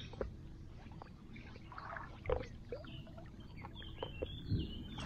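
Faint waterside ambience: wind rumbling on the microphone, with a few small knocks and light water sounds scattered through, and a few short high chirps in the second half.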